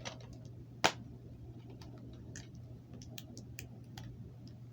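A plastic DVD case and its wrapping being handled and picked at by hand: scattered light clicks and ticks, with one sharp click a little under a second in, over a steady low hum.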